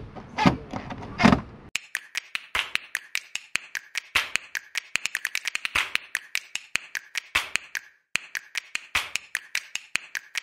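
A few knocks, then, from just under two seconds in, a quick and uneven run of sharp clicks and snaps that breaks off briefly about eight seconds in.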